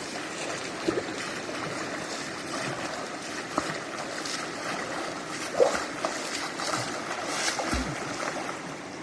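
Fast-flowing river in flood, its water rushing steadily, with a few short splashes of someone in the water.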